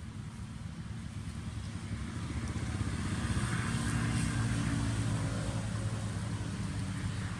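A motor vehicle's engine hum, steady and low, growing louder toward the middle and easing off near the end.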